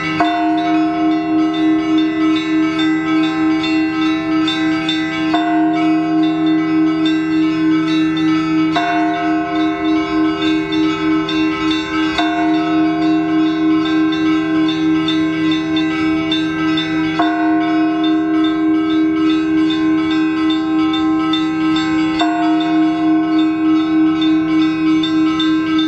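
Russian Orthodox church bells ringing: several bells struck in a quick, steady repeating rhythm over the long sustained hum of a larger bell, with the higher bells' pattern changing every few seconds.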